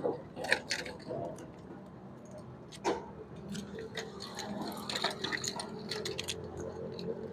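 Small sharp clicks, ticks and scraping as copper winding wire is pulled and worked loose by hand from a CRT television's coil. The sharpest clicks come about half a second in and near three seconds.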